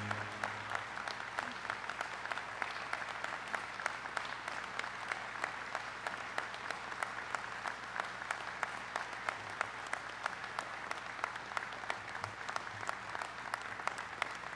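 Large audience applauding steadily, many hands clapping together without a break.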